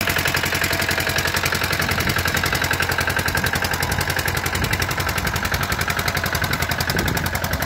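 Walk-behind two-wheel tractor (power tiller) engine running as the tractor drives, a rapid, even chugging of about ten beats a second.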